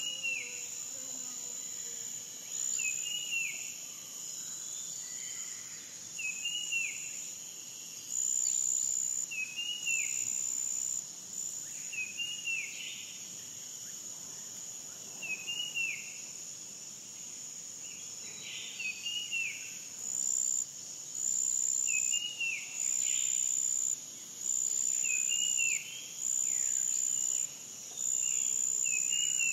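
A bird repeats a short, clear call about every two seconds over a continuous high insect trill that cuts in and out in stretches of about a second, more regularly in the second half.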